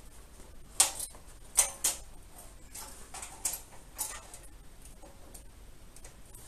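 Hands working a waxed-cotton saddle bag's straps and fittings against a metal luggage rack: irregular clicks and rustles, three sharper clicks within the first two seconds.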